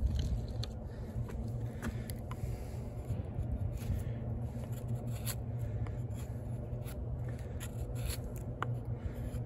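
Light handling noise from a knife and split wood being picked up and looked over: scattered small clicks and scrapes over a steady low rumble.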